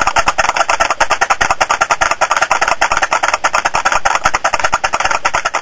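A fast, even run of sharp clicks or taps, well over ten a second, with no break.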